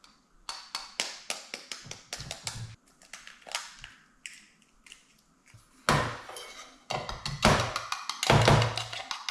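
Camp cookware being handled while a Trangia Mini alcohol stove is set up: a quick run of light taps and knocks, then longer handling noises about six seconds in and again near the end.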